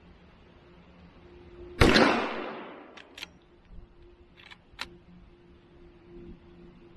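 A single lever-action rifle shot about two seconds in, followed by echo dying away over about a second. Then a few short metallic clicks, the lever being worked to eject the spent case and chamber the next round.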